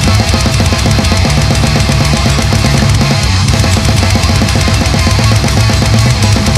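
Instrumental passage of a death metal song: rapid, dense drumming with heavy distorted guitar and bass riffing, and no vocals.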